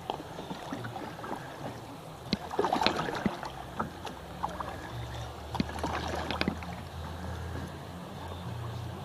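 Kayak paddle strokes: water splashing and dripping off the paddle blades in irregular bursts, loudest about three seconds in and again around six seconds, over a steady low rumble.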